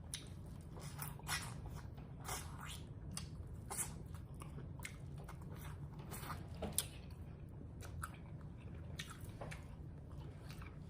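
A person chewing and biting fried chicken wings close to the microphone: irregular crunches, wet smacks and mouth clicks.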